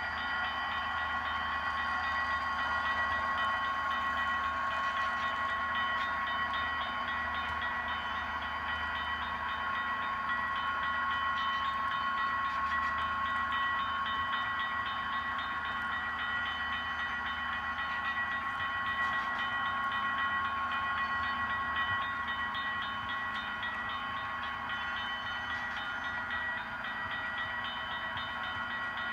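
HO-scale model grade-crossing bell ringing continuously while the freight cars roll past on the track, over the low drone of the sound-decoder diesel locomotives, which thins out after about the middle.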